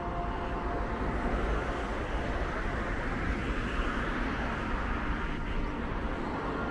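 Street traffic noise: a vehicle passing, swelling and fading around the middle.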